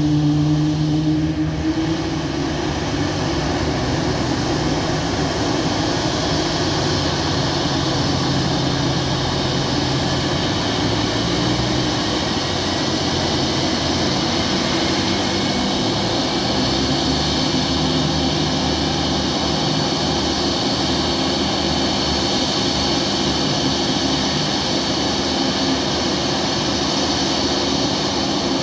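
Boeing 737 MAX 8's CFM LEAP-1B turbofan engines running steadily at ground idle, a constant rush with a high whine. A lower engine drone from the tow tractor fades out about two seconds in.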